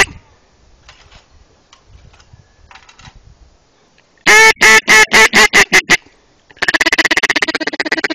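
Duck call blown at full volume: a string of about ten loud quacks a little more than halfway through, then a fast chattering feed call near the end, calling ducks in toward the hunters.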